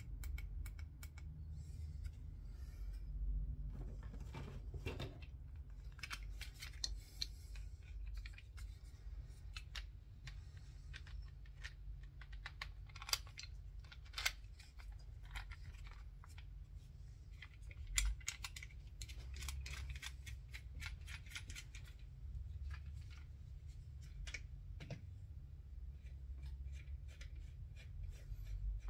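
Scattered small clicks, taps and scrapes of scope-mounting parts and tools being handled on a workbench, with a few sharper ticks, over a low steady hum.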